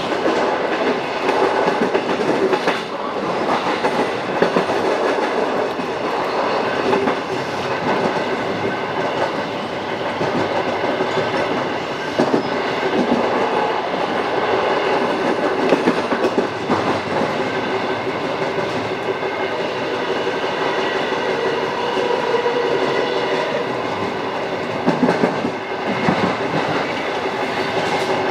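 Electric commuter train running along the track, wheels clicking and clacking over rail joints, with a steady hum beneath.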